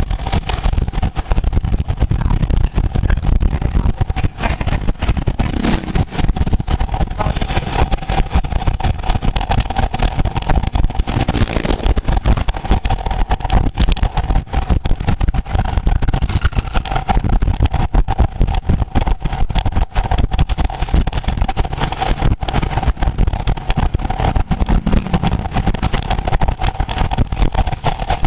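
Loud wind rushing over the microphone while riding at race speed on a road bike, mixed with road and tyre noise and a steady hum.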